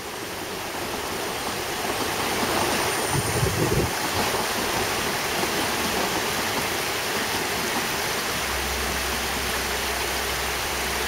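Narrow-gauge railway coaches rolling along the track, a steady rushing noise that swells over the first couple of seconds, with a low rumble joining near the end.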